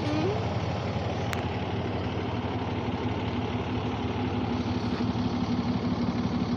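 Large truck engine idling steadily with a fast, even low pulse; one of its tones grows stronger about halfway through.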